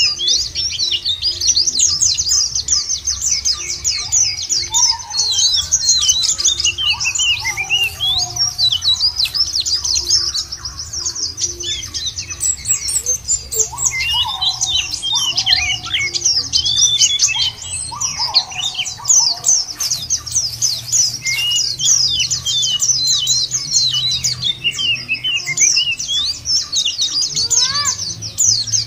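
Oriental white-eyes (pleci, Zosterops) in a dense, rapid chorus of high twittering chirps that never lets up. Lower, downslurred whistles come in a few times, about five to nine seconds in and again around fourteen to nineteen seconds, over a steady low rumble.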